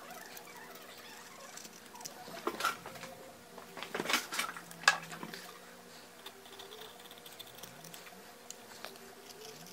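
Utility knife blade scraping and trimming along the edge of a leather sheath, in short scratchy strokes. Around four to five seconds in, the sheath and knife are set down on the work mat, with one sharp click.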